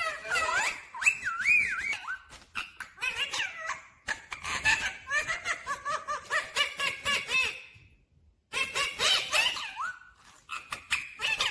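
Rose-ringed parakeet chattering and calling: a rapid run of squawks and warbling whistled notes that sweep up and down in pitch, with a short pause about eight seconds in.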